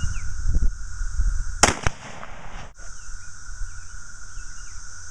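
A single unsuppressed rifle shot from a 22-243 bolt-action rifle about a second and a half in: a sharp crack followed about a fifth of a second later by a second crack.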